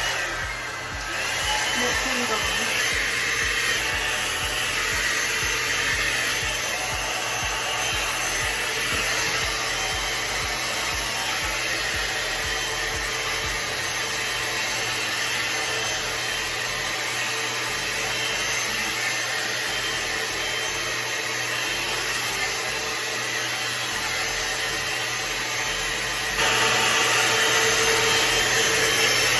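Hot-air brush styler (a hair dryer brush) switched on at its high setting, blowing with a steady rushing whoosh and motor hum as it dries and styles hair. It gets louder near the end.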